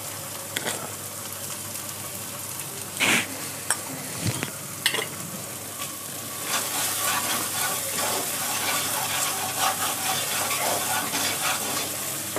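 Thick masala paste frying with a steady sizzle in a nonstick pan, with a few sharp knocks in the first half. From about six seconds in, a spatula stirs and scrapes through the paste.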